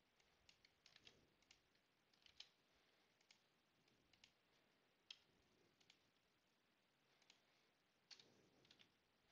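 Faint, scattered clicks of a computer keyboard being typed on and a mouse being clicked, irregular and a few to the second at most, over near silence.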